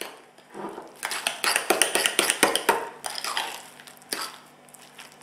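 Metal fork mixing milk into mashed potato in a glass bowl: quick, irregular clinks and scrapes of the fork against the glass. They die down about four seconds in.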